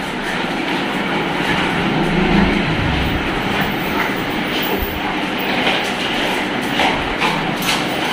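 A pack of dogs milling about on a tiled floor: a steady, dense clatter of claws and shuffling paws, with a few sharper clicks.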